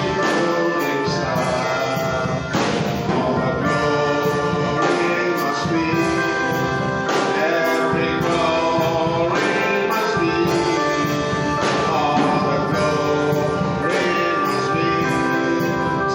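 Gospel worship music: a group of singers over sustained instrumental chords, with regular accents every couple of seconds.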